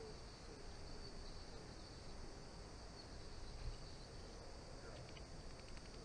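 Faint outdoor background with a steady high-pitched drone like insects and a low rumble, one soft low bump a little past the middle, and a few light ticks near the end.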